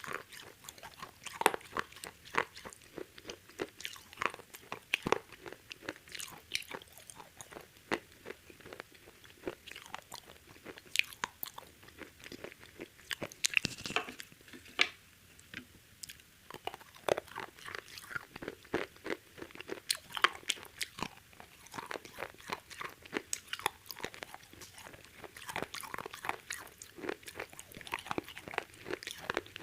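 Close-up eating sounds: crispy KFC fried chicken being bitten and chewed, a dense, irregular run of sharp crunches with a short lull partway through.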